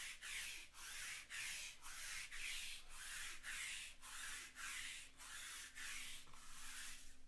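A handheld roller rolled back and forth over a cloth table cover in quick, even strokes about two a second, each stroke a dry rubbing scratch.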